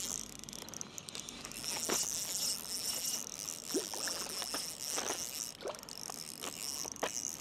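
Steady high-pitched insect buzzing, with a few faint sharp clicks scattered through it.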